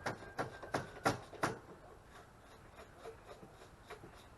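Tool work on the mower's frame bolts: a quick run of about five sharp clicks or knocks, roughly three a second, then faint handling noise after about a second and a half.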